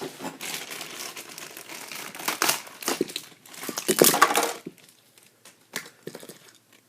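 Plastic packaging crinkling and rustling as hands rummage through it, loudest about four seconds in, followed by a few light clicks.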